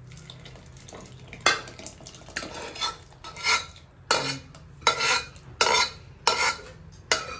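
Aluminium pressure cooker and cookware clanking as cooked dal is poured and knocked out of the cooker into a pot of vegetables: after a quiet first second and a half, about nine sharp, ringing metal clanks.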